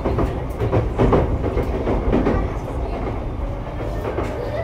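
Sotetsu 12000 series electric train running, heard from inside motor car MoHa 12501: a steady low rumble with irregular clacks of the wheels over rail joints. A steady tone comes in about three and a half seconds in.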